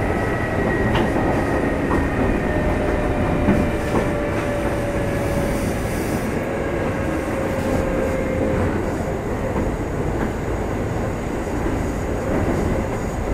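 Running sound heard inside a Kintetsu 2610 series motor car: steady rumble with a motor and gear whine that slowly falls in pitch as the train slows, and a few clicks of the wheels over rail joints.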